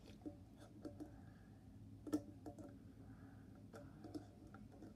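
Faint, scattered clicks and taps from a small metal putty tin being pried at, its lid not coming open.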